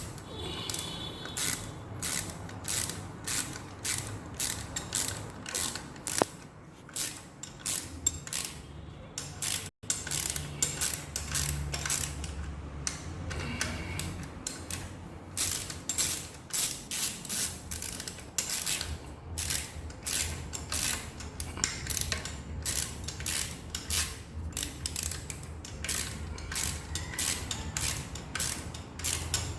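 Hand ratchet wrench clicking in steady strokes, about two clicks a second, as the timing belt tensioner is tightened.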